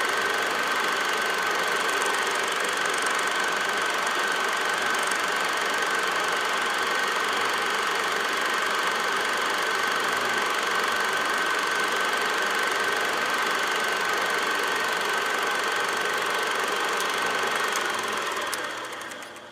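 Old film projector running steadily, a continuous mechanical clatter with a steady high tone through it. It fades out near the end.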